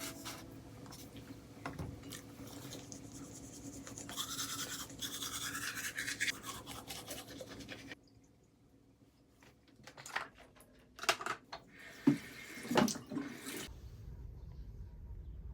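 A brush scrubbing with quick back-and-forth strokes that stops abruptly about halfway through, followed by a few light knocks and clatters and then a low steady hum near the end.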